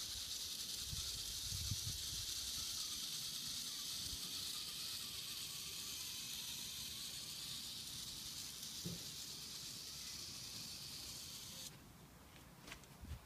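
Small solar-powered electric motor and plastic gearbox of a toy kit car whirring steadily with a high hiss as the car drives along. It cuts off abruptly near the end.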